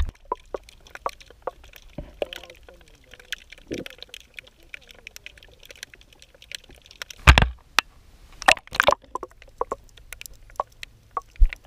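Water and handling noise picked up by a GoPro underwater: scattered clicks and knocks over a low murmur, with louder thumps about seven seconds in and a pair more about a second and a half later.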